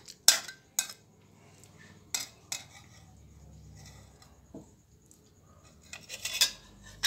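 Metal utensils clanking and scraping against a wok of sautéed vegetables: a few sharp clacks near the start, two more about two seconds in, and a short burst of clatter about six seconds in.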